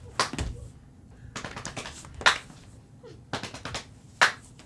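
Sharp percussive hits in a repeating rhythm: a quick run of about four light hits, then one loud accented hit, the pattern coming round about every two seconds.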